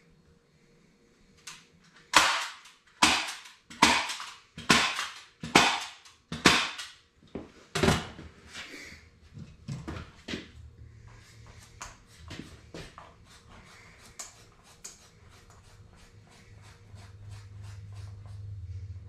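About eight sharp knocks, less than a second apart, followed by lighter, quicker tapping. A low hum comes in partway through and grows louder near the end.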